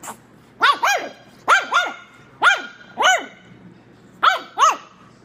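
Nine-week-old pug puppy barking: about eight short, high-pitched yaps, mostly in pairs, each rising and falling in pitch.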